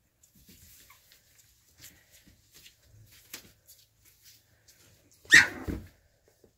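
A 2½-week-old puppy gives one short, loud cry about five seconds in. Faint scratching and rustling of small paws on newspaper comes and goes around it.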